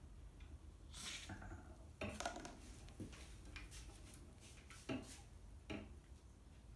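Faint handling sounds at a linocut printing press: paper sliding and rustling on the press bed, with a few light knocks and clinks scattered through.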